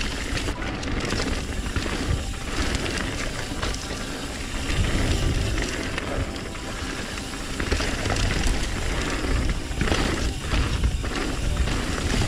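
Mountain bike riding fast down a loose, rocky trail: tyres crunching over stones and the bike rattling with frequent knocks, with wind rushing over the camera microphone.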